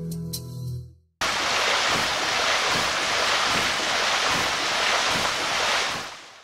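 Plucked-string music fades out in the first second; then, after a short gap, a loud water sound effect of rushing, surging and splashing water starts abruptly and runs about five seconds before fading away.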